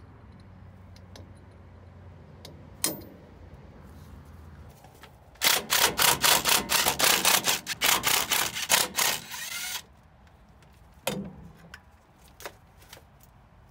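A power tool rattling loudly in rapid repeated hits for about four seconds, starting about five and a half seconds in, with a single sharp knock before it and another after.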